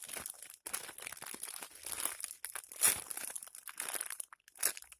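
Irregular crinkling and crackling as a hamburger-shaped foam squishy toy is handled and squeezed, with a louder crackle near the middle and another near the end.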